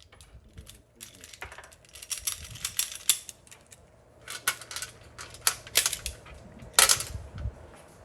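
Metallic clicks and clacks of a semi-automatic pistol being handled to clear a jam: slide and magazine being worked in quick, irregular strokes, with one louder sharp clack near seven seconds.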